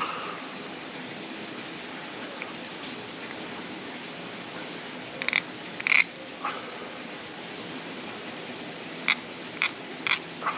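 A knife carving a new divot into a fatwood bearing block for a bow drill spindle: a few short, sharp scraping strokes, two around the middle and three in quick succession near the end.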